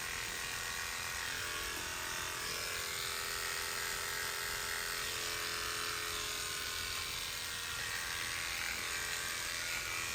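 Electric hair clippers buzzing steadily as they shave a scalp down to the skin, the shaving step before an FUE hair transplant.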